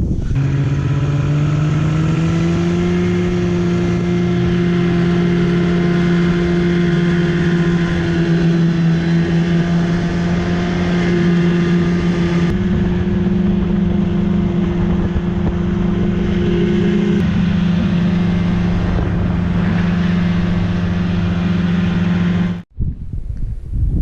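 Snowmobile engine pulling away, its pitch rising over the first few seconds, then running at a steady speed under way. The sound drops out abruptly near the end.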